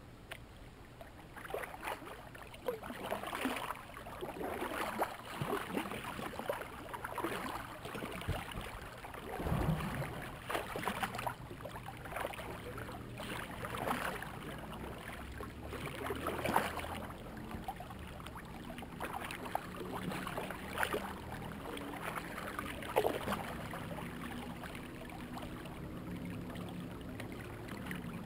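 Kayak paddle strokes in the water, a splash and swish every two seconds or so over a light wash of water; the strokes die away near the end.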